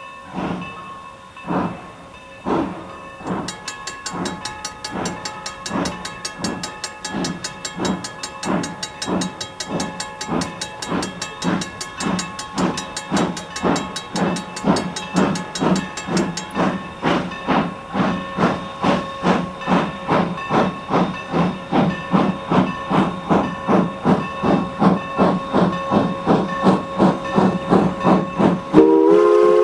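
Steam locomotive (ex-Norfolk & Western 4-8-0 #475) working hard, its exhaust chuffs quickening steadily from about one a second to several a second as it gains speed. Near the end its PRR three-chime steam whistle sounds loudly.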